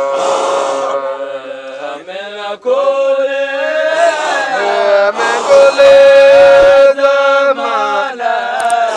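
Group of men chanting a Sufi dhikr of the Qadiriyya order together, with one long held note about midway as the loudest moment.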